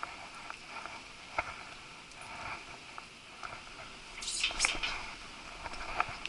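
Rain pattering with scattered small taps and rustles, and a louder scraping rustle about four seconds in.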